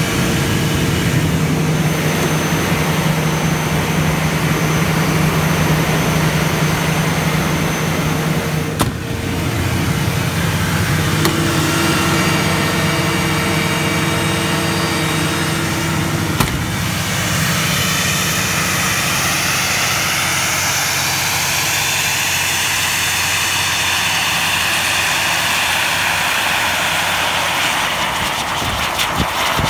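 Cummins diesel engine of a Doosan 1500 CFM portable air compressor running steadily, with a higher hiss coming up in the second half.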